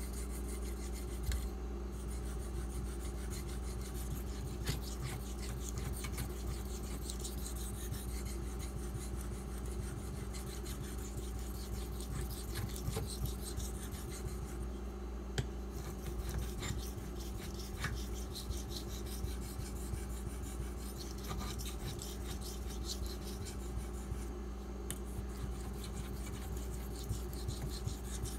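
440C steel knife blade scraped back and forth across a slurry-covered 4000-grit Nubatama Ume waterstone in repeated sharpening strokes, over a steady low background hum.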